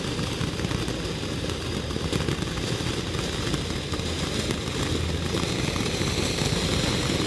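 Ground fountain firework spraying sparks: a steady rushing hiss peppered with many small crackles.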